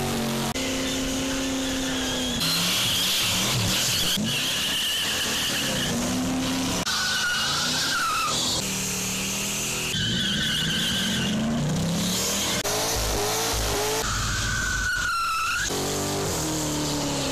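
Car burnouts one after another: engines held at high revs and rising and falling while the rear tyres spin and squeal on the pavement. The sound changes abruptly every couple of seconds as one car's burnout is cut to the next.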